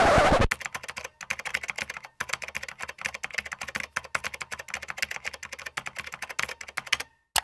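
A short burst of TV-static noise, then a long run of quick, irregular clicks as an end-card sound effect, stopping with one louder click near the end.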